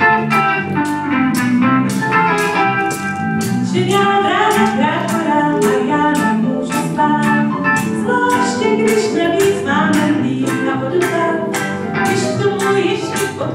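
A small live band playing a song: electric guitar, bass guitar and keyboard, with a steady beat of about two sharp strikes a second, and a woman singing at the microphone.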